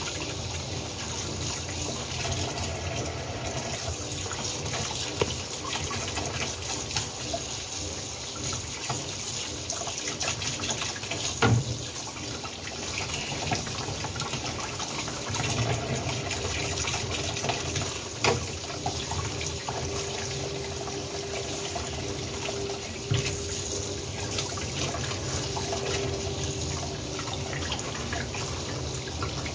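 Tap water running steadily into a stainless steel sink as a whole fish is rinsed under the stream by hand. Two sharp knocks sound about a third and two thirds of the way through.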